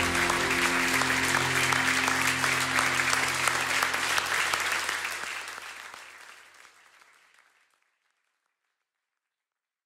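Applause over closing music with low held chords, both fading out between about four and eight seconds in.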